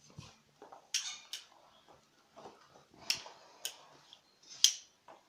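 About five sharp clicks and light clinks of small hard objects being handled, spread unevenly across a few seconds. The loudest come about three and four and a half seconds in.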